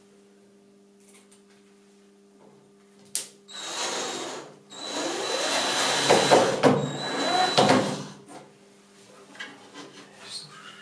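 Cordless drill/driver driving a screw into the panel on the wooden frame. A short burst comes first, then a longer run of about three seconds, its motor whining steadily.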